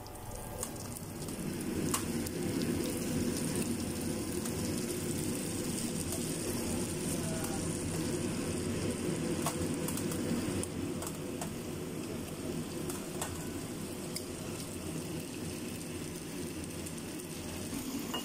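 Chicken wings and ginger slices frying in hot oil in a pan: a steady sizzle with scattered small pops.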